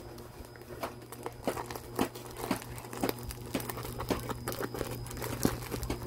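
Packaging around a coiled Ethernet cable crinkling and crackling as it is pulled and torn open by hand, in many irregular sharp crackles over a steady low hum.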